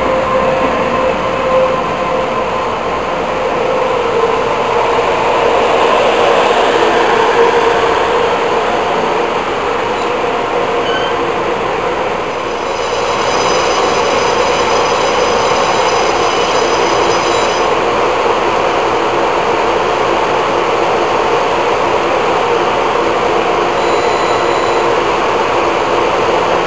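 Taiwan Railway electric commuter train rolling along the platform, with the noise of its wheels and running gear. After about 13 seconds it settles into a steady running noise while the train stands alongside.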